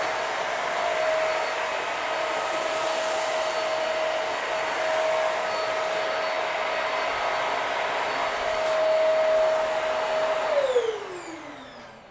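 Hoover Max Life Pro Pet Swivel upright vacuum running with a steady motor whine and rush of suction air. About ten seconds in it is switched off, and the whine falls in pitch as the motor winds down.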